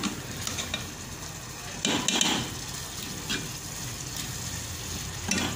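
Steel ladle stirring thick chickpea curry in a metal pot over a steady sizzle, with a few scrapes of the ladle against the pot, the loudest about two seconds in.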